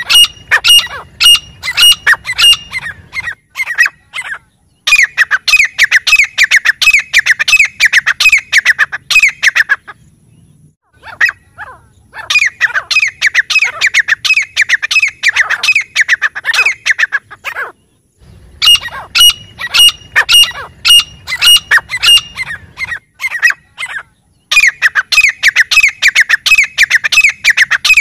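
Grey francolins calling: loud, rapid series of short, falling notes, repeated in bouts of several seconds with brief pauses between them.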